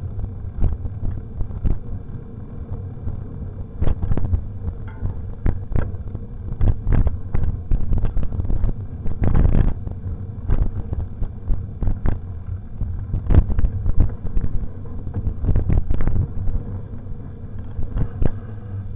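Mountain bike rattling over a rough dirt singletrack: irregular knocks and clatter from the bike and camera mount over bumps, on top of a steady low rumble.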